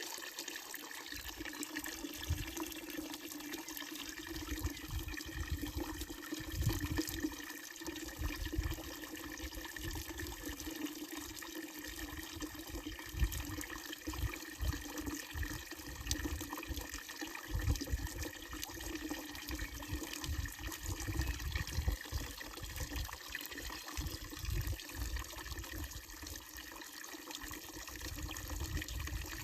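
Water pouring steadily from a wooden trough spout of an old fountain, with low rumbles that come and go underneath.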